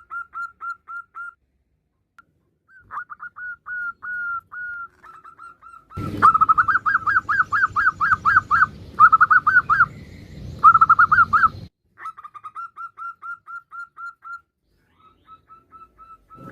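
Female zebra dove calling: runs of short, rapid notes, about eight a second, broken by brief pauses. The loudest run, from about six to twelve seconds in, starts and stops abruptly over a faint hiss.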